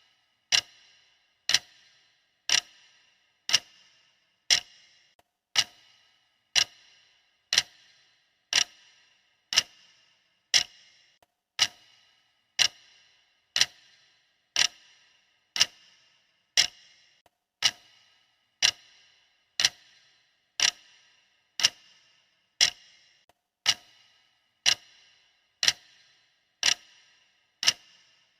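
Clock ticking sound effect of a timer: one sharp, even tick about every second, each with a brief metallic ring, steady throughout.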